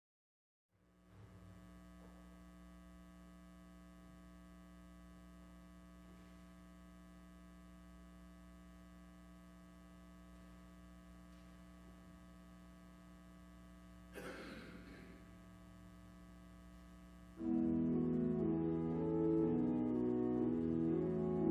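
A steady low hum with a brief rustle about two-thirds of the way through, then pipe organ music starts suddenly near the end, playing sustained chords that shift in pitch.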